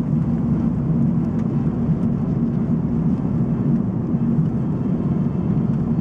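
Steady low drone of a moving car's engine and road noise heard from inside the cabin.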